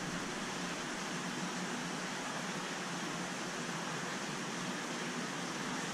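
Steady, even hiss of a large aquarium's water circulation and aeration.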